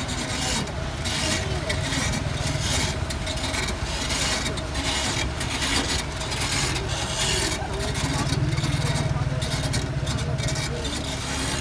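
An engine running steadily, with faint voices underneath. The low pulsing of the engine grows stronger for a couple of seconds past the middle.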